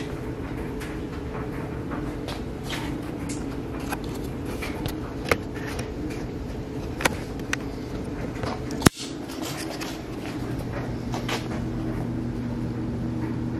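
Steady hum of a clothes dryer running, with scattered light clicks and taps and one sharp click about nine seconds in.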